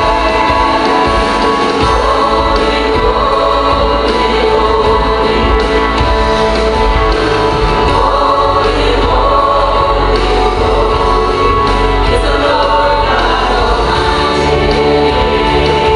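A young boy and a woman singing a gospel song together into microphones, with musical accompaniment underneath.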